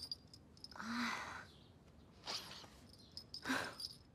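A young woman sneezing a few times into a handkerchief, short breathy bursts each opening with a little voiced catch; she takes herself to have caught a chill.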